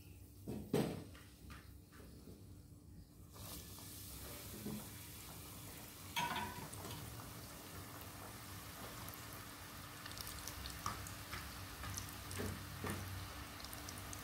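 A knock about a second in. Then, from about three seconds in, flour-coated chicken pieces sizzle and crackle as they deep-fry in hot oil, with a clatter about six seconds in.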